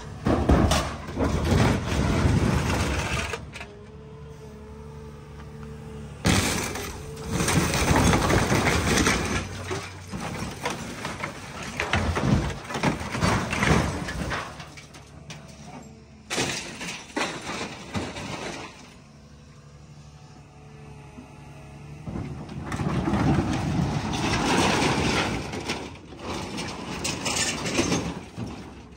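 Excavator bucket crushing an old car's body: five or so bouts of crunching sheet metal and cracking, breaking glass, with the excavator's diesel engine running steadily in the pauses between.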